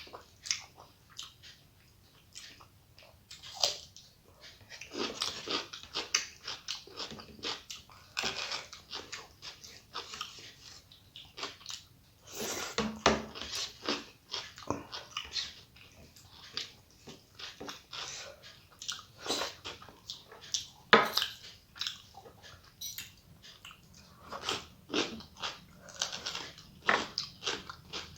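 A person eating close to the microphone: chewing a meal of rice and curry with many irregular short wet smacks and clicks of the mouth.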